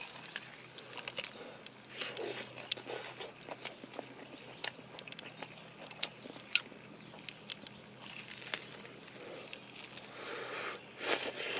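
Crunching and chewing of crisp, batter-fried whiting close to the microphone: scattered sharp crackles as the crust breaks, with a louder crunch about eleven seconds in.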